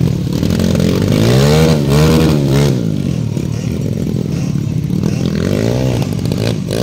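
Motocross dirt bike engine revving up and down repeatedly, the pitch climbing and dropping several times, loudest about two seconds in, as the bike struggles through deep mud.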